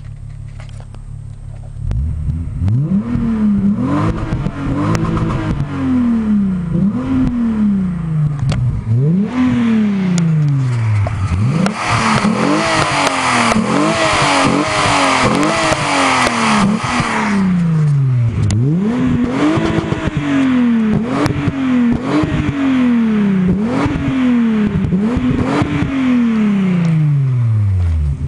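Volkswagen Golf 3 VR6 engine through a lightly freed-up exhaust. It idles briefly, then is revved over and over in quick blips, each rise in pitch falling straight back, and settles toward idle at the end.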